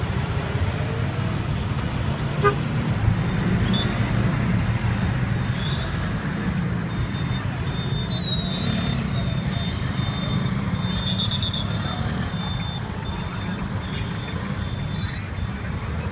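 Busy street traffic: motorcycles and cars running past with a steady low engine rumble, and a few short high-pitched toots, mostly in the middle stretch.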